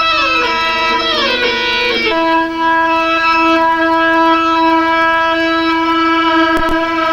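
Music: several stacked tones slide downward in pitch over the first two seconds, then settle into a steady held chord, with a brief click near the end.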